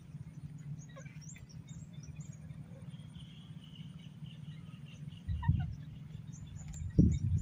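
Scattered small bird chirps over a steady low outdoor rumble, with louder low rumbles about five seconds in and again near the end.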